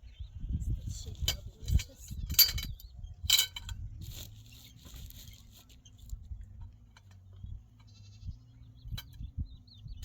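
Goats bleating, with several sharp clicks and knocks in the first few seconds, then a faint steady low hum.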